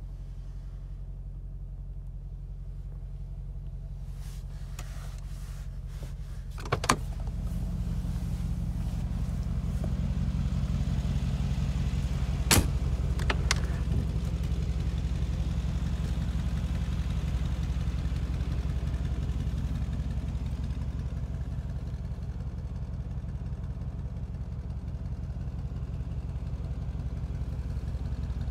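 Mercedes-AMG G 63's twin-turbo V8 idling steadily. A couple of sharp door-latch clicks come about seven seconds in, after which the engine is louder, and another sharp door click comes about halfway through.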